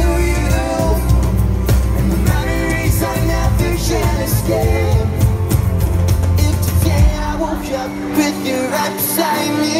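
Live pop-rock band playing through a PA, with electric and acoustic guitars, bass, drums and singing. About seven seconds in, the deep bass and drums drop out, leaving guitars and voice.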